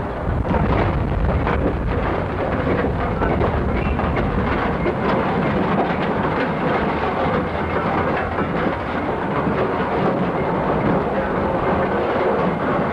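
A heavy vehicle or machine running: loud, steady mechanical noise with irregular clatter.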